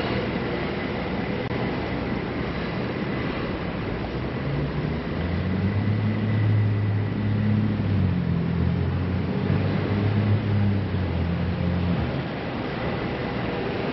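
Street traffic noise with the low drone of a heavy vehicle's engine, which swells about five seconds in and fades a couple of seconds before the end.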